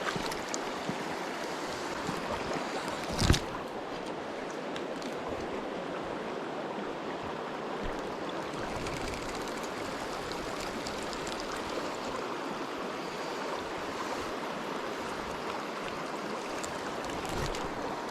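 River water flowing steadily, a running rush running high over a sandbar, with one brief sharp thump about three seconds in.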